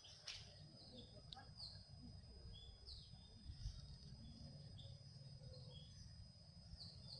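Faint birds calling: short, high chirps that slide downward, repeated every second or so, over a low rumble.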